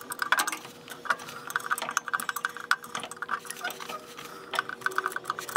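Runs of quick metallic clicks as a screwdriver turns the toothed shoe adjuster of a 1949 Chevy 3100's rear Huck drum brake through the slot in the backing plate. The clicks come in short bursts, about a second in, around two seconds and again near the end.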